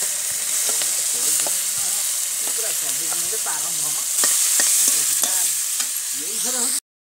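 Sliced onions frying in hot oil in an iron kadai, giving a loud, steady sizzle. A metal spatula clicks and scrapes against the pan as they are stirred. The sizzle cuts off suddenly near the end.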